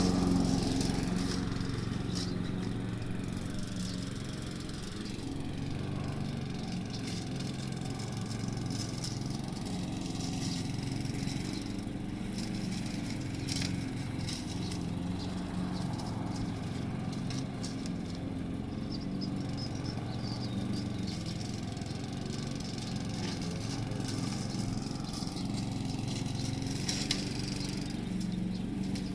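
Briggs and Stratton 3.5 hp single-cylinder four-stroke engine of a 14-inch rotary petrol lawnmower, running steadily while cutting grass. It grows fainter over the first few seconds, then holds an even drone.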